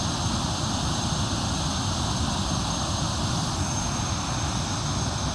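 Steady rushing roar of Thompson Falls, water plunging into its gorge.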